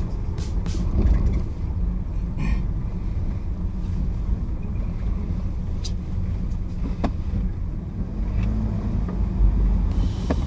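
Car being driven, heard from inside the cabin: a steady low rumble of engine and road noise, with a couple of faint ticks a little past the middle.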